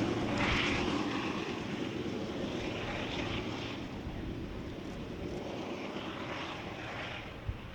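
Union Pacific coal train receding just after its last cars pass: the rumble of its wheels on the rails drops off sharply and then fades slowly into the distance, with a few faint swells of wheel noise.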